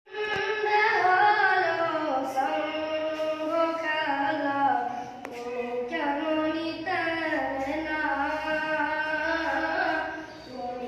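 A boy singing a Bengali song solo without instruments, one high voice holding long notes and sliding between them, with a short breath dip near the end.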